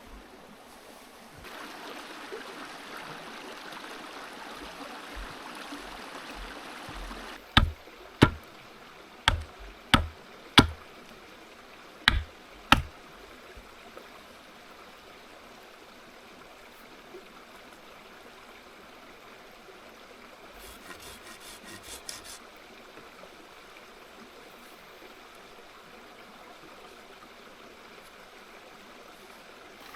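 A river running steadily, with seven sharp knocks of wood being struck a third of the way in, coming in two quick groups. A brief fast rasp follows around two-thirds of the way through.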